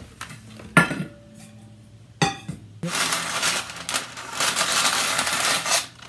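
Two light metallic clinks, then about three seconds of loud rustling and tearing as baking parchment is pulled from its roll to line a baking pan.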